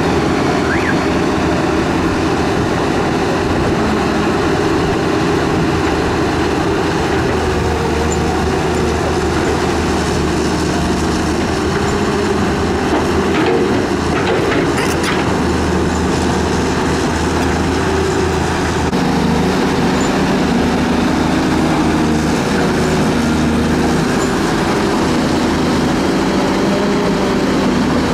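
Heavy diesel excavator engines, the stuck Hyundai and the Cat 320 recovering it, running steadily under load. A few sharp metal clanks come about halfway through, and the engine note shifts a little later on.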